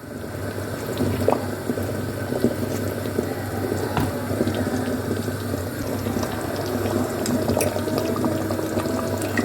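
Water running steadily from a kitchen tap, with a few light clicks and knocks.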